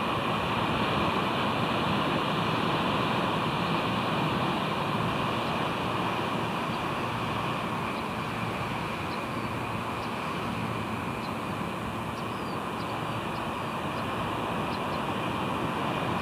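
Steady rushing noise of wind and surf on the exposed nest microphone, with faint short high ticks scattered through the second half.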